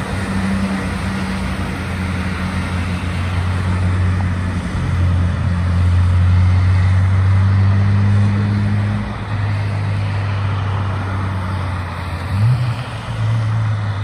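Road traffic passing on a wet road: tyre hiss under a low, steady engine drone from a heavy vehicle such as a concrete mixer truck. The drone is loudest about halfway through, and a short rise in engine pitch comes near the end.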